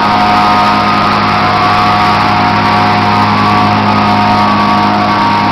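Walk-behind plate compactor running steadily, its small engine droning evenly as the vibrating plate packs a quarter-minus gravel sub base.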